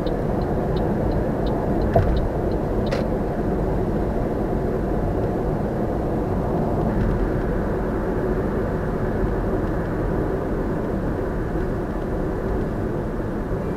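Steady tyre and road noise with the engine running, heard inside a car cruising on an expressway. A light regular ticking stops about a second and a half in, and there is a single knock about two seconds in.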